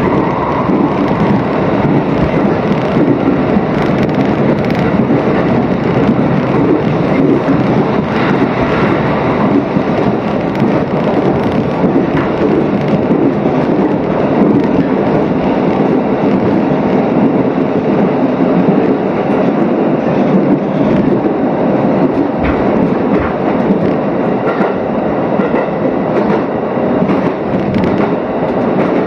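Electric commuter train running at speed, heard from inside the carriage: a steady rumble of wheels on rail with scattered clicks.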